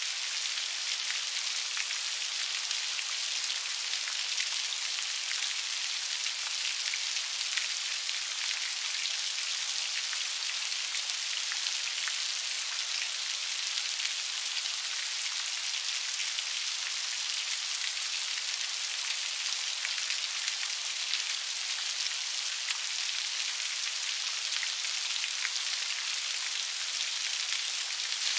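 Steady rain falling, a dense even hiss of many small drops with fine individual drop ticks scattered through it.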